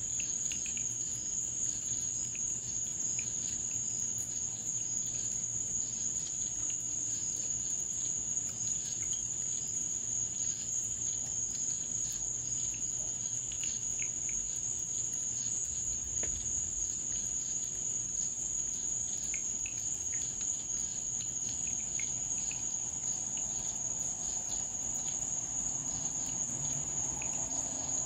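Crickets chirring steadily in one unbroken high-pitched trill, with faint scattered ticks.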